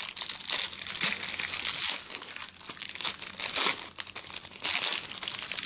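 Packaging crinkling and tearing in irregular bursts of rustling as a wrapped stack of full-art basic land cards is opened by hand.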